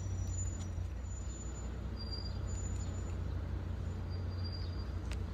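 Steady low rumble, with a few faint clicks and brief faint high tones.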